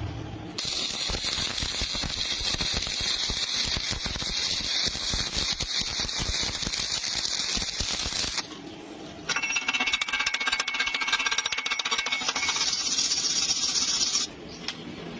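Stick-welding arc from an ARC250 arc welder, crackling and sputtering as the electrode burns. It runs in two stretches, about eight seconds and then about five seconds, with a break of about a second between them.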